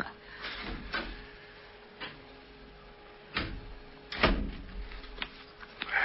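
Old-time radio drama sound effects: about half a dozen scattered knocks, clicks and rustles over a faint steady hum. One has a brief squeak, about four seconds in.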